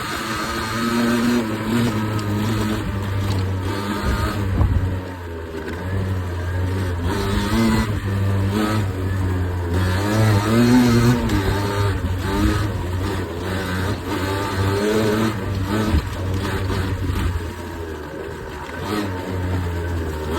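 Beta RR 50 enduro motorcycle's 50 cc two-stroke engine revving up and down, its pitch rising and falling again and again.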